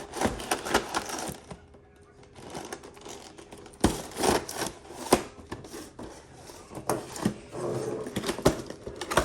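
Toy box being opened by hand: cardboard and packaging rustling, with irregular knocks and clicks as it is handled.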